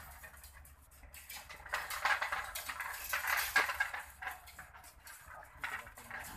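Aluminum fence wire being twisted by hand around a crossing of mesh wires: irregular metallic scraping and clinking as the wire is wound tight, louder in a couple of spells.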